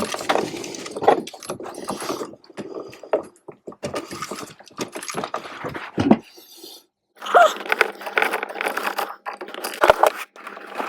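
Irregular clicks, scrapes and small rattles of an electrical outlet and its wires being handled while a wire is fastened under a terminal screw of a new GFCI outlet.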